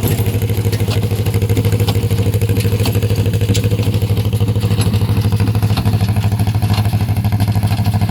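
John Deere 40T tractor's two-cylinder engine running steadily with an even, rapid pulsing beat as it drives a New Holland 66 hay baler, with scattered light clicks and clatter over it.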